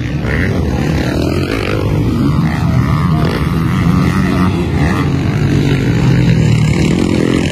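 Motocross dirt bikes' engines running and revving on a race track, a steady loud engine sound.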